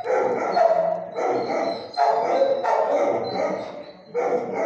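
A dog barking repeatedly in a shelter kennel, about five loud barks roughly a second apart.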